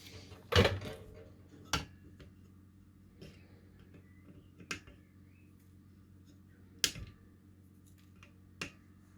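A handful of sharp, separate clicks and taps from hand tools working on a small circuit board, about five spread over the stretch, the first the loudest, over a low steady hum.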